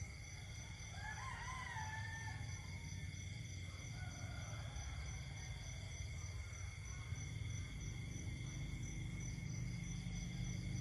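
Night chorus of insects trilling in several steady high tones, with frogs calling. About a second in, a single short call wavering in pitch, like a distant rooster crowing, with fainter calls a few seconds later.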